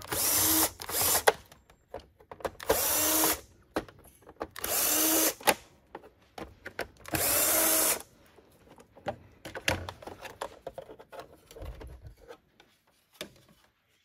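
Small handheld electric screwdriver running in several short bursts, each under a second, backing out the captive screws of a Roomba 600-series battery cover. Lighter clicks and plastic handling knocks follow.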